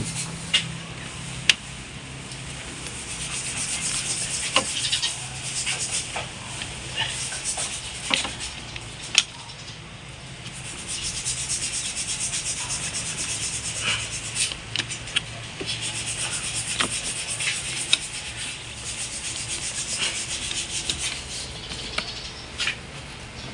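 Rubber air-intake hose and plastic air filter housing of an Isuzu D-Max being handled and pushed back together: stretches of rubbing and scraping, with sharp clicks and knocks scattered through.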